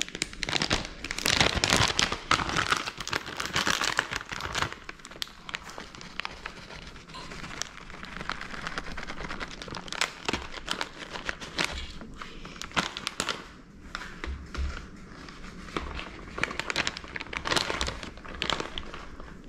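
Crinkling and rustling crackles as shredded cheese is handled and sprinkled by hand over a pizza. Densest for the first five seconds, then sparser, scattered crackles.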